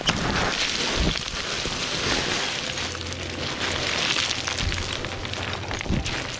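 Boots crunching and sliding down loose scree: a dense, gritty clatter of small stones with occasional sharper knocks. Music is faint underneath.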